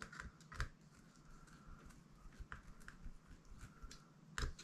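Faint, scattered clicks and taps of small parts being handled as an RC crawler wheel is assembled with screws, with one louder tap near the end.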